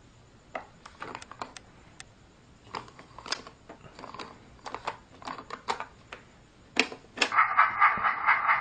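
Plastic toy parts clicking and clacking as a toy train playset is handled, then a loud buzzing electronic sound from the toy starts about seven seconds in.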